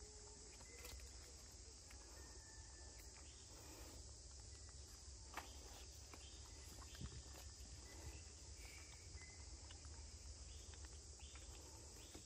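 Faint outdoor ambience: a steady, high-pitched insect drone, with a few soft scattered ticks and rustles.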